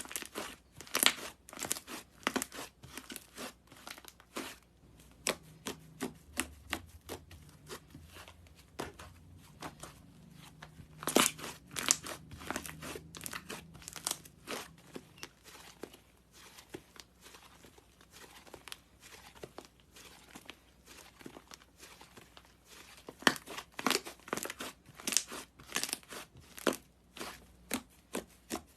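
Slime being squeezed and worked by hand, giving irregular sharp pops and crackles, several loud ones in quick clusters.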